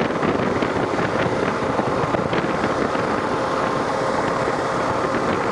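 Steady wind noise rushing over the microphone while riding a Kawasaki KLR650 motorcycle at highway speed, with the bike's single-cylinder engine running steadily underneath.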